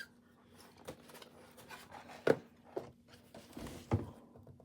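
Handling sounds of a small diecast model airplane and its box packaging: scattered light taps and clicks, the sharpest about two seconds in, and a couple more knocks near four seconds.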